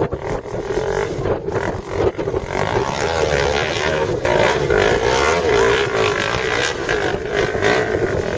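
Dirt bike engine revving hard under load on a steep hill climb, the revs swinging up and down quickly as the rider works the throttle, with scattered knocks.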